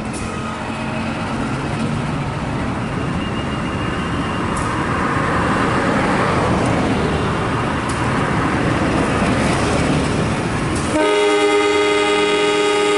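Train running through the station with a loud rumbling noise that builds over several seconds, then the train's horn sounding one long, steady, many-toned blast from about 11 seconds in.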